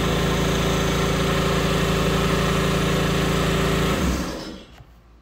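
Battery-powered electric drive motor of a WaveRunner converted from gas to electric, running with a steady hum while the handlebar button is held; it cuts out about four seconds in and fades away when the button is let go.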